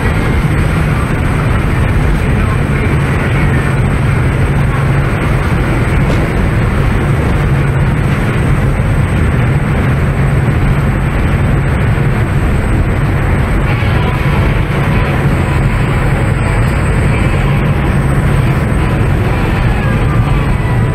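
Fast tour boat running at speed: a steady, loud engine drone under the rush of wake and spray, with wind buffeting the microphone.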